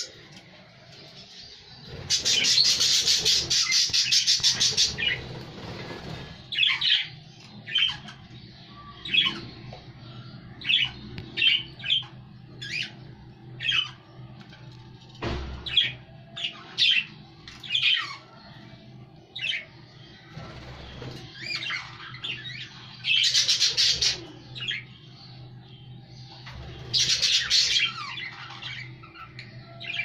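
Budgerigars calling: many short, high chirps about a second apart, broken by three longer raspy bursts of chattering squawks, the longest a few seconds in and two more in the last third.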